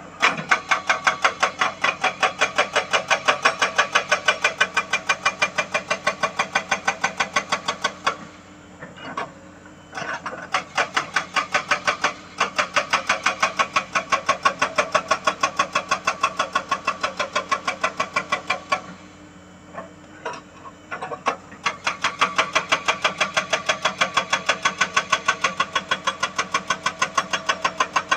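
Excavator-mounted hydraulic rock breaker hammering hard rock in rapid, even blows, stopping twice for a couple of seconds, when only the excavator's engine running is heard, before hammering again.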